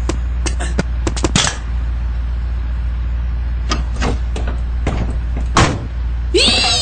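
A vehicle engine idling as a steady low rumble, with scattered clicks and knocks. A sharper knock comes about five and a half seconds in, the rumble stops, and a jingle with singing starts just before the end.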